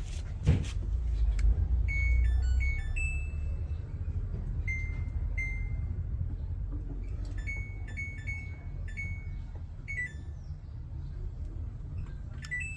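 Washing machine control panel beeping as its buttons are pressed to select a spin cycle: short electronic beeps in groups of several, with some longer tones, over a steady low hum. A sharp click about half a second in.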